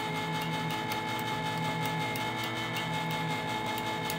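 Electric countertop can opener running steadily, its motor humming at an even pitch as it turns the can and cuts around the lid.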